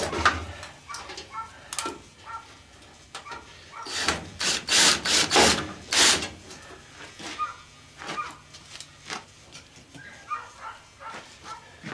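Scattered clanks, taps and rattles of tools and metal parts while a washing machine is taken apart. The loudest is a quick run of knocks about four to six seconds in.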